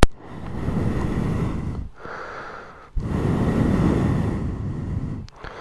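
A person breathing heavily close to the microphone: three long, noisy breaths with short pauses between them.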